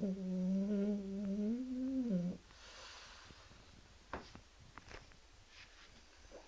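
French bulldog snoring in its sleep: one long snore on a steady pitch that ends a little over two seconds in. A softer breath and a few short snuffling clicks follow.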